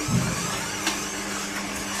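Kuvings cold-press slow juicer running, its motor humming steadily as the auger crushes fruit and vegetables. There is a low thump just after the start and a sharp click about a second in.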